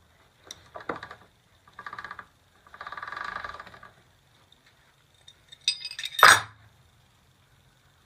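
Steel hand wrenches working on a motorcycle's rear axle nut: three short rasping, clicking stretches of metal on metal, then a sharp metal clank about six seconds in.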